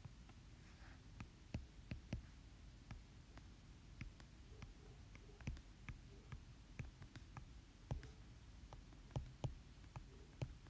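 Faint, irregular taps and clicks of a stylus on a tablet screen during handwriting, a few a second, over a low steady hum.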